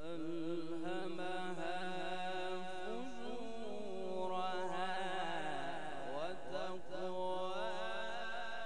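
A man reciting the Quran in the melodic tajweed style into a microphone, drawing out long held notes that waver and glide up and down in ornate turns.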